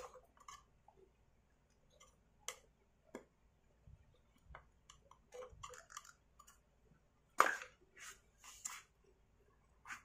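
Scattered small clicks and taps of a hand tool working on a Stihl MS250 chainsaw's housing, with the loudest knock about seven and a half seconds in, followed by a few quicker taps.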